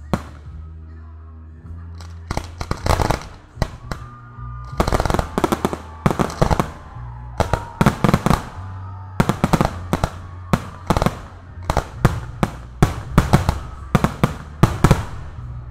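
Aerial firework shells bursting: one bang right at the start, then from about two seconds in a rapid run of loud reports, several a second. Music with a steady deep bass plays underneath.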